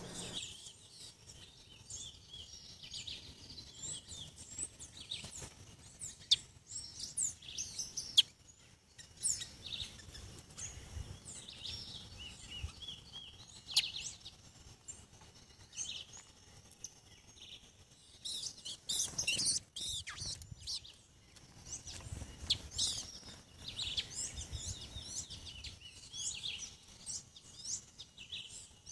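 Wild birds chirping and calling in many short, high notes, with a couple of sharp clicks about six and eight seconds in.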